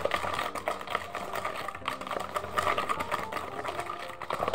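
Eggs and sugar being beaten by hand in a plastic mixing bowl: rapid, even clicking and scraping of the utensil against the bowl.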